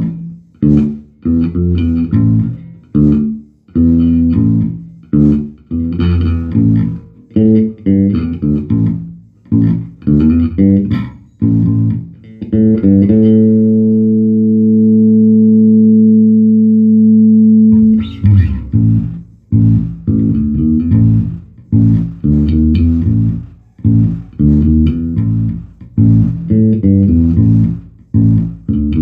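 Electric bass guitar played through a Markbass Little Mark 58R bass amplifier, which is working again after a power-supply repair. A run of plucked notes and double stops, then a chord held ringing for about five seconds in the middle, then more plucked playing.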